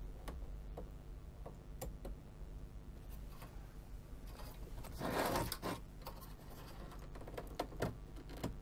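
Small clicks and scrapes of a desoldered daughterboard module's pin row being worked loose in a circuit board's through-holes, with a brief louder scraping rustle about five seconds in and a couple of sharper clicks near the end.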